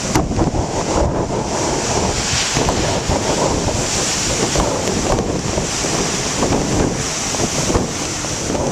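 Strong wind buffeting a plastic-wrapped microphone over the steady rush of big ocean waves breaking.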